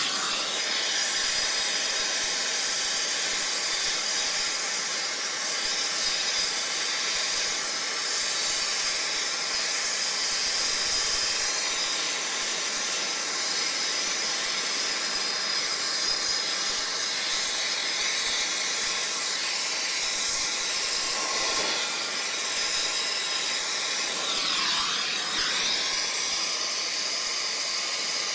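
Air-acetylene brazing torch flame hissing steadily while it heats a copper refrigerant line joint at an AC condenser's service valve. The hiss wavers briefly near the end.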